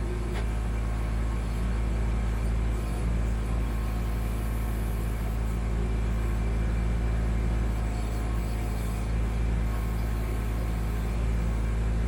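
Kubota B2650 compact tractor's three-cylinder diesel engine running steadily under backhoe work, a constant low rumble.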